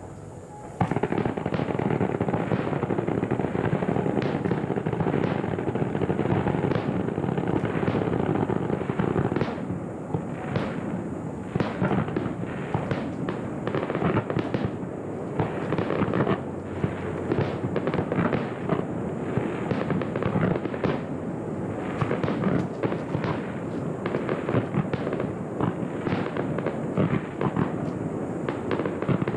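A dense barrage of aerial fireworks: rapid bangs and crackling one on top of another, starting about a second in and going on without pause.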